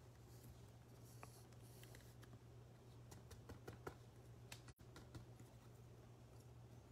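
Faint scattered clicks and light scratches of a trading card in a plastic sleeve being handled and slid into a rigid plastic toploader, over a low steady hum.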